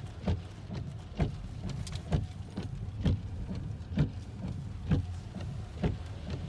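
Car windshield wipers knocking at each sweep, about once a second, over the steady low hum of the car.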